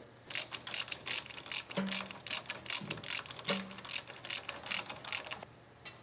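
Hand ratchet wrench clicking in quick irregular strokes as bolts are turned, with two short low tones partway through.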